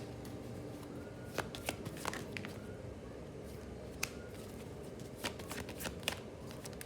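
Tarot cards being shuffled and handled, with irregular sharp snaps and slaps of the cards.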